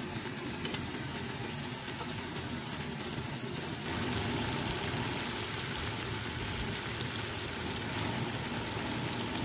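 Spiced onion-tomato masala sizzling and simmering in a cooking pot over a fire, over a steady low rumble. The sizzle gets louder about four seconds in, as more raw pigeon pieces go into the pot.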